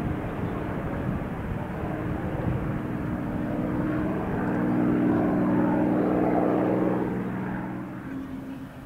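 P-51D Mustang's Packard V-1650-7 Merlin V12 engine running as the plane flies by, a steady drone that swells to its loudest a little past the middle and fades toward the end.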